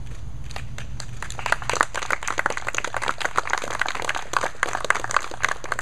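A small group of people applauding, the clapping starting about a second in and carrying on steadily.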